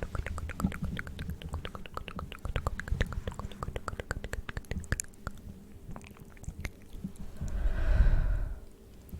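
ASMR mouth sounds close to the microphone: rapid wet clicks and smacks of tongue and lips. Near the end, a loud breathy exhale into the microphone.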